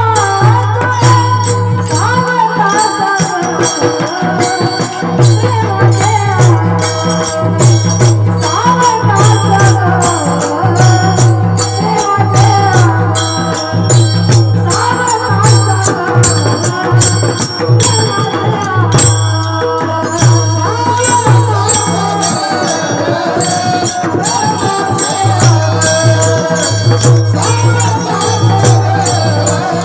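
Devotional folk music led by a mridang drum played in a fast, steady rhythm, with a gliding sung melody and rapid metallic cymbal strikes over it.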